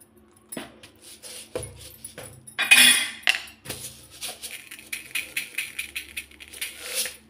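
Jingling and clattering of kitchen containers and utensils being handled on a counter, with a louder rattle about three seconds in.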